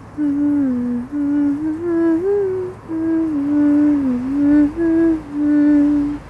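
A person humming a slow melody without words, with long held notes that glide up and down between pitches in several short phrases.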